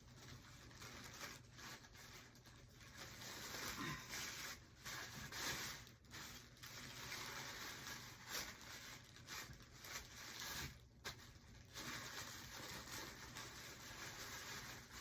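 Irregular rustling and handling noises as shirts and packaging are moved about, with soft rubs and small crinkles.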